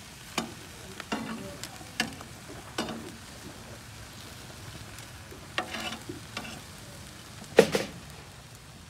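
Metal tongs clacking and scraping against a gas grill's grates as chicken pieces are turned, over the steady sizzle of meat grilling. The loudest clack comes near the end.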